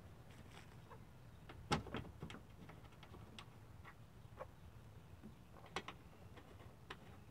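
Scattered light clicks and taps of a 2008 Chevrolet Aveo's plastic headlamp assembly being handled and seated on its mounting bolts. The loudest click comes a little under two seconds in.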